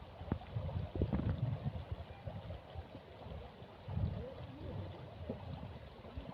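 Outdoor river ambience: an uneven low rumble, like wind buffeting the microphone, with faint distant voices and a few light knocks.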